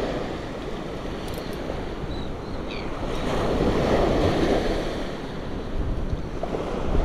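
Small surf breaking and washing up a sandy beach, swelling louder about halfway through, with wind buffeting the microphone.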